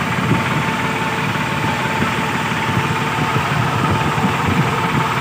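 Sonalika 52 tractor's diesel engine running steadily, heard close up from the driver's seat as a fast, even chug.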